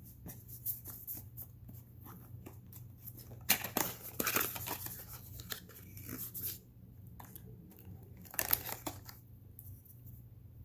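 Small cardboard product box being opened and handled: light taps and scrapes, then a longer scraping rustle of cardboard from about three and a half to six and a half seconds in as the inner tray comes out of its sleeve, and another short scrape a couple of seconds later.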